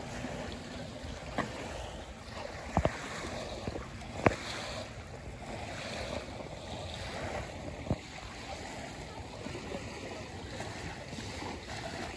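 Small waves lapping on a sandy lakeshore, with some wind on the microphone. A few sharp clicks cut through, the loudest about four seconds in.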